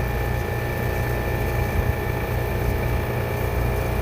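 Rheem heat pump outdoor unit running with a steady low hum and a couple of faint steady high tones above it.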